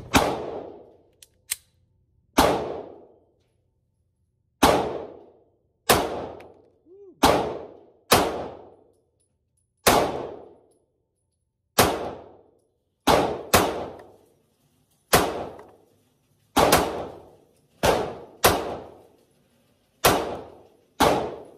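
Canik TP9 Elite SC 9mm subcompact pistol firing single shots at a steady slow-fire pace, roughly one to two seconds apart and now and then two in quicker succession. Each report is sharp, with a short ringing tail.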